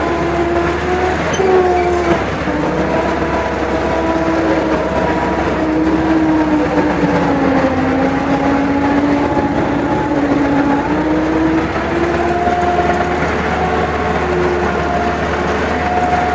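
Vehicle driving on a rough forest road, its engine and drivetrain giving a steady whine over road rumble. The whine sags a little in pitch midway and climbs back near the end.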